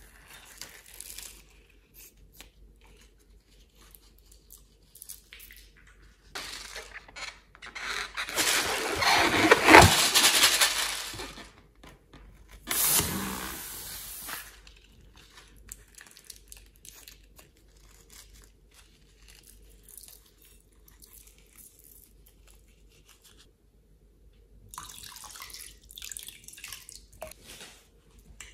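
Wet squelching and spluttering as the contents of cut-open balloons are squeezed out into a bowl of slime, loudest in a long stretch around the middle and again briefly a little later. Softer sticky crackling of the slime being stirred near the end.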